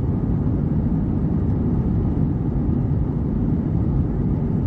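Steady low rumble inside an Airbus A321 passenger cabin as the jet taxis, the engines running at taxi power.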